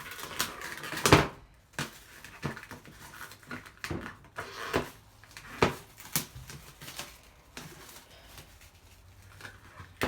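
Plastic parts and packaging of a mini washing machine being handled: irregular knocks and clicks, with a rustle near the start and the loudest knock about a second in.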